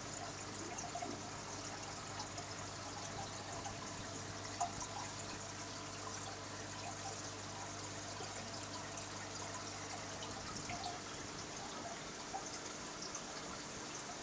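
Aquarium water trickling and bubbling from the aeration and filtration, a steady soft wash with small pops and drips. Under it runs a low steady hum that stops about three quarters of the way through.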